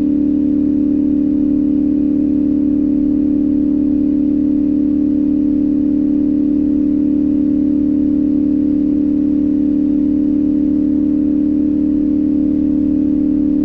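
2025 CFMOTO 450SS's parallel-twin engine running at a steady speed while cruising, its note held at one pitch.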